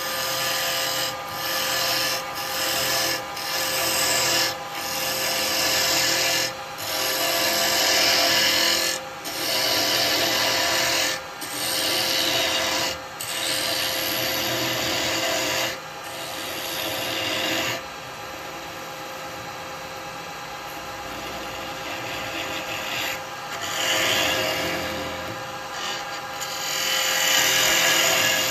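Wood lathe running with a steady motor hum while a turning tool cuts a spinning bowl blank. The scraping hiss of each pass starts and stops every second or two. The cuts are lighter for a few seconds past the middle, then heavier again near the end.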